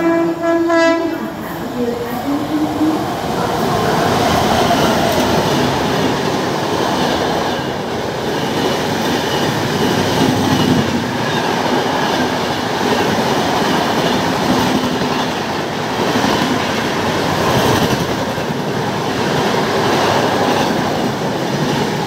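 Passenger train running through a station at speed: a horn blast in the first second, then a continuous rush and rattle of the coaches' wheels on the rails as the long rake passes.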